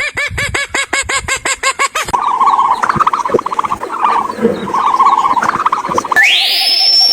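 Animal calls in three cut-together segments. First a quick run of repeated arched calls for about two seconds, then a stretch of chattering, then a long whistle near the end that rises sharply and holds high.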